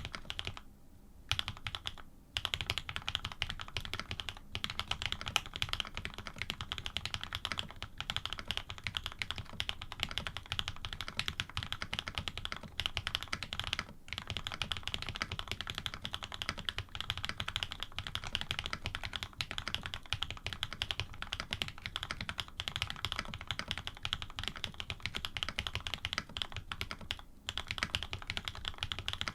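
Fast, continuous typing on an AR87 custom mechanical keyboard fitted with lubed linear switches (cream stems in Cherry housings, Krytox 105), PBT keycaps and an aluminium plate. There is a short pause in the keystrokes about a second in.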